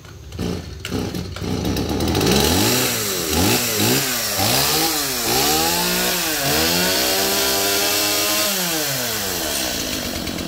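Stihl MS 180 two-stroke chainsaw running unevenly for the first couple of seconds, then revved up and down several times, held at high revs and let drop back toward idle near the end.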